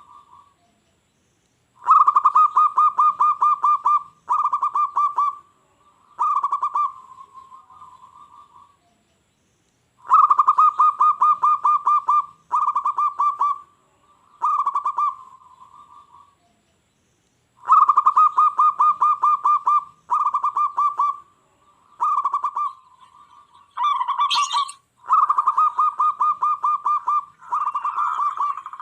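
Zebra dove (perkutut) singing: a rapid run of soft coos, repeated as a phrase roughly every eight seconds, each phrase a long opening run followed by two or three shorter ones. Near the end the phrases crowd together, with a brief higher call just before.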